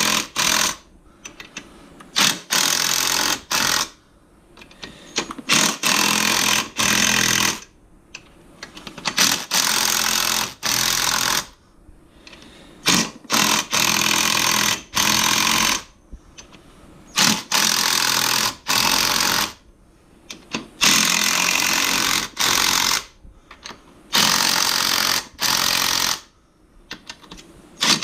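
Ridgid impact wrench hammering in short bursts of about one to two seconds, with pauses between, as the axle hub bolts on a Yamaha Raptor 660R are snugged down a little at a time in turn.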